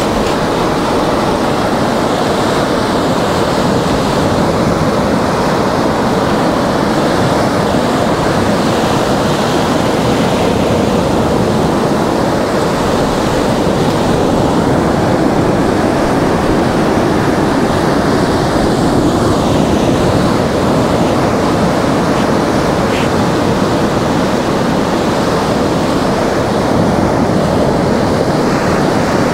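Black Sea surf breaking and washing up over a flat sandy beach close to the microphone, a steady rush of water.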